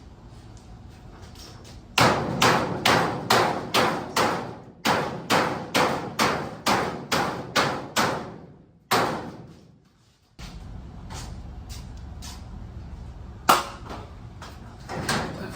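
Hammer blows on the metal hardware of a garage door: a fast run of about fifteen strikes, two to three a second, each ringing briefly. Then one strike that rings out longer, and a single louder knock near the end.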